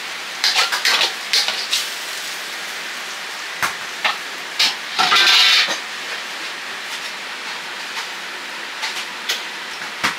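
Food sizzling steadily in a hot wok, with scattered clanks and scrapes of a metal ladle against the pan and a louder clatter about five seconds in.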